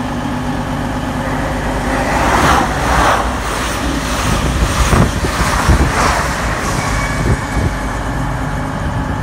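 Class 222 Meridian diesel multiple unit passing close by: a steady diesel engine hum under a loud rush of wheels and air that swells as the cars go past, with a few sharp knocks in the middle, then eases off.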